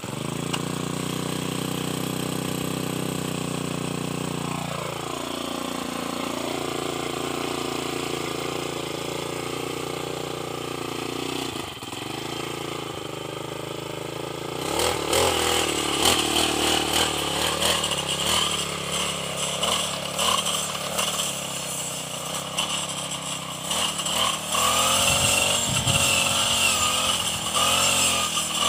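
Petrol brush cutter engine running at a low, steady speed, its pitch dipping briefly twice. About fifteen seconds in it is opened up to cutting speed and sweeps through grass; the engine note turns louder and rougher and wavers under load.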